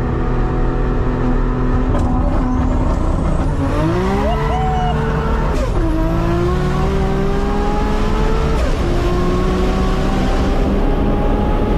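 Turbocharged 1300 hp Toyota Supra engine heard from inside the cabin under hard acceleration. The pitch holds for a few seconds, then climbs steeply, falls at a gear shift about six seconds in, climbs again, and falls at a second shift near nine seconds before rising once more.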